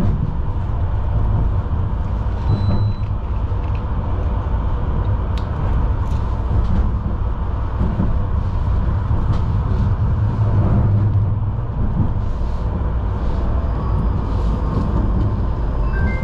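Tram running along its track, heard from inside the car: a steady low rumble of wheels on rails with a faint steady hum, and a few light clicks about five to seven seconds in.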